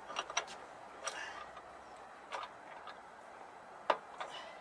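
A handful of sharp metallic clicks and clinks, irregularly spaced, from a spanner working on the motorcycle's front axle self-locking nut. The loudest click comes a little under a second before the end.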